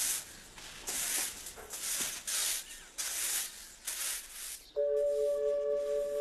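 Repeated swishing rustles in dry leaves and grass, irregular, about one to two a second. Soft music with held notes comes in near the end.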